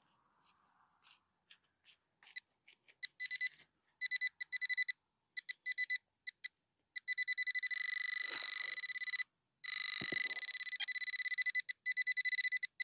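Quest Xpointer Max pinpointer probe sounding in dug soil. A few faint ticks at first, then short high beeps from about three seconds in. The beeps speed up into a near-continuous tone, with a brief gap about two-thirds of the way through, as the probe closes on a buried metal target.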